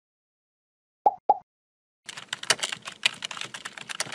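Two short blips, then rapid computer-keyboard typing clicks from about halfway through: a typing sound effect for text appearing in an animated search bar.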